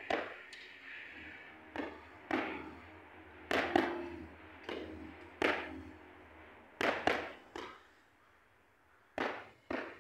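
Boxing gloves smacking into focus mitts during pad work: about a dozen sharp pops in quick combinations of one to three punches, with short gaps between combinations.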